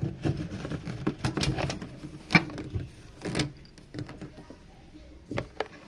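Handling noise: a run of irregular knocks and clicks, with the loudest few bunched in the first half.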